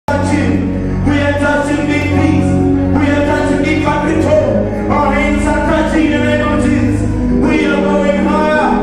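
Gospel music: singing over a steady, sustained bass line.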